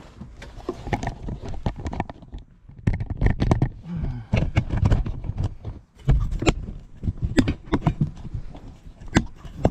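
Irregular knocks, clicks and scrapes close to the microphone, with no power tool running: a camera tripod being handled and set up.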